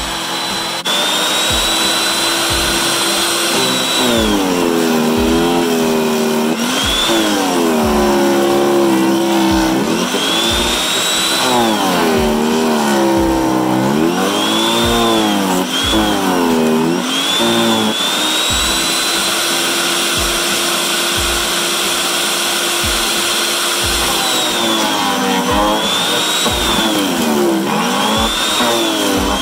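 Portland electric chipper shredder running and grinding branches into wood chips. The motor's pitch drops each time a branch bogs it down, then climbs back, again and again.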